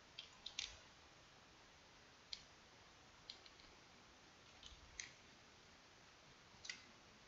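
Computer mouse and keyboard clicks: a handful of short, sharp clicks, some single and some in quick groups of two or three, spread over several seconds against faint hiss.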